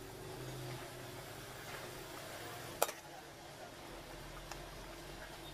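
Metal ladle stirring noodles in simmering water in an aluminium wok, faint, with one sharp clink of the ladle against the pan just under three seconds in.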